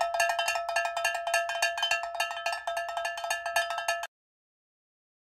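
Intro jingle of a bell-like metallic note struck rapidly over and over, a few steady pitches ringing together, cutting off suddenly about four seconds in.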